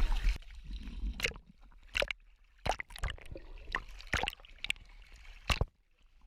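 A series of about ten sharp, irregularly spaced knocks and clicks, after a loud rumble cuts off suddenly about half a second in.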